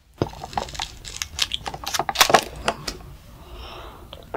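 Close-miked sounds of a child drinking and chewing konjac bubble tea: a quick run of small, crisp clicks and crackles, easing off near the end.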